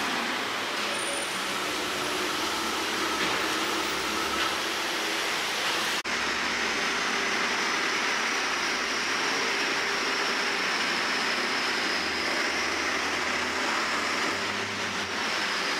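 Steady noise of car traffic and idling engines, with a faint high whine in the second half and a brief drop-out about six seconds in.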